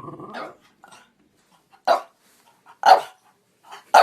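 A dog barking: a short pitched whine-like sound at the start, then two loud single barks about a second apart.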